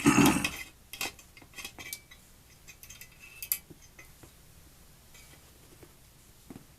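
Small metal parts of a gas water heater's burner assembly being handled while a screw and bracket are taken out. A scrape at the start is followed by scattered light metallic clicks and clinks that thin out in the second half.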